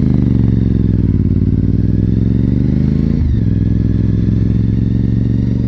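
2004 Honda RC51's 1000 cc V-twin engine running as the motorcycle is ridden. The pitch sags and rises a little, with a brief break about three seconds in.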